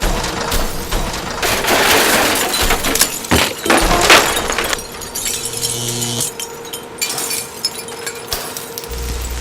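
Added foley sound effects: a dense run of crashes, clatter and sharp impacts, loudest about four seconds in, with a short low hum in the middle and a deep boom near the end.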